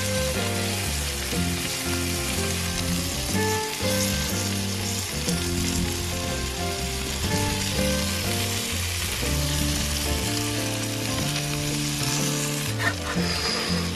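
Whole flounder and eggs frying in butter and oil on a barbecue hotplate: a steady, continuous sizzle. Background music with a bass line plays underneath.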